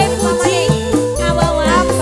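Live dangdut music from an organ-led band: a melody line with bends and slides over a steady deep bass and regular hand-drum strokes.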